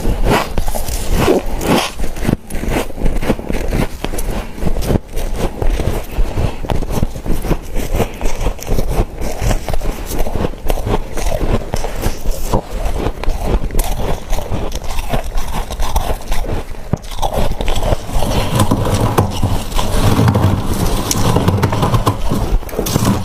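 Close-up biting and chewing of dry, squeaky humidifier frost chunks: rapid crunches and crackles one after another, with a low pitched sound joining in for the last few seconds.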